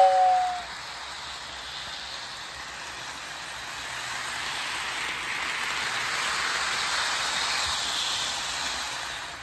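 Lionel Pennsylvania Flyer toy steam locomotive finishing a two-tone whistle blast, then running around the track with a steady hissing run sound that swells as the train comes near and fades near the end.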